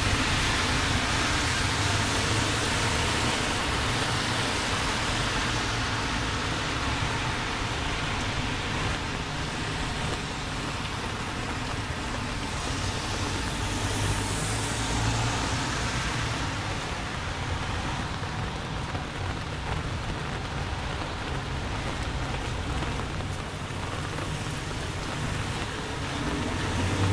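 Heavy rain falling, with road traffic passing on the wet street: a steady hiss of rain and tyres on wet tarmac.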